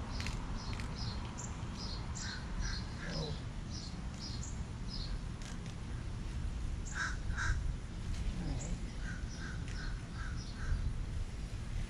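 Birds calling in three short runs of two to five calls each, over a steady low background rumble.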